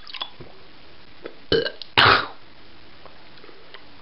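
A man gulping down a shot of soy sauce, with small throat and mouth noises, then a short, loud throaty gasp or belch-like exhale about two seconds in, a reaction to the strong, burning taste.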